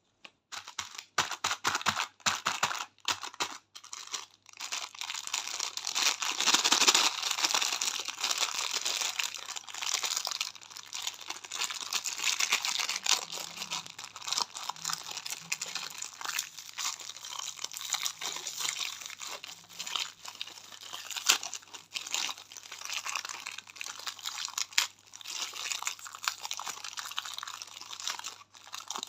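Candy wrappers crinkling and tearing as lollipops and chocolates are unwrapped: a few separate crackles at first, then almost continuous crinkling.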